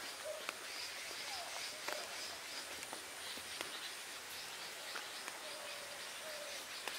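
Faint countryside ambience: scattered short bird calls and a light chirring of insects, with a few soft ticks.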